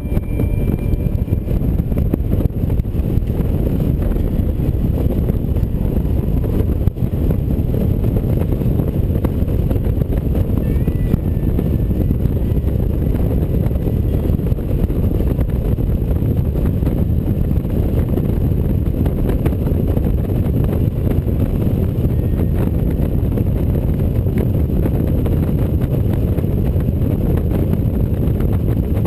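Touring motorcycle cruising steadily on a paved highway: a steady, loud, low rumble of engine, tyres and wind.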